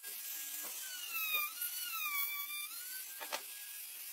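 Handheld Maktec trim router running as its bit cuts along a pine edge, its high whine dipping and recovering in pitch under load. One sharp click a little over three seconds in.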